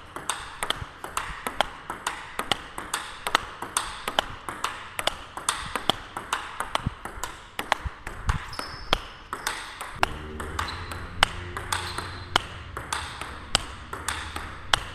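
Table tennis rally: the ball clicks off the bats and bounces on the table in a steady rhythm, about three to four hits a second. One of the bats is faced with Nittaku Genextion rubber.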